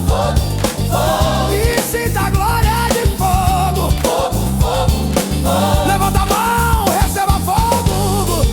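Groove soul gospel music: drums and a bass line under a wavering lead melody with vibrato.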